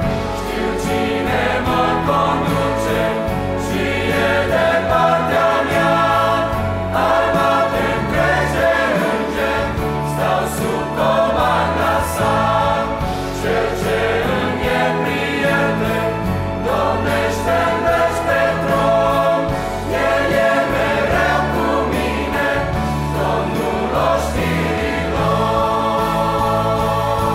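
Large mixed choir of young men and women singing a hymn in many parts, sustained and steady.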